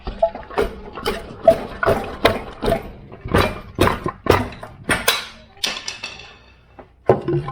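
Repeated hammer blows through a block of wood onto a seized front-suspension ball joint on a Jeep Grand Cherokee, about two to three strikes a second, stopping about six seconds in, then one more near the end. The joint is not coming free.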